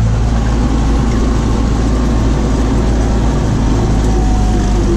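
Tractor engine running steadily under load while shredding sunflower stalks with a stalk mulcher: a loud, even low drone with no change in speed.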